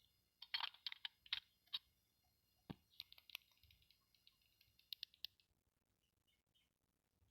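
Light clicks and taps of toy doctor playset pieces being handled, a quick irregular run over the first five seconds, then only faint scattered ticks.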